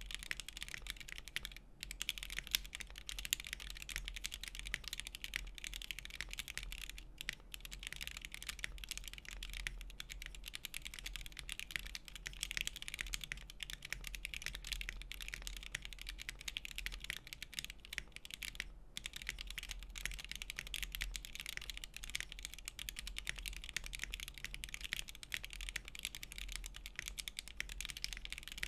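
Continuous typing on a Monokei x TGR Tomo custom mechanical keyboard, top-mounted with a full aluminium plate, case foam, stock Gateron CJ linear switches and NicePBT PBT keycaps: a dense stream of key clacks, with short pauses about two, seven and nineteen seconds in.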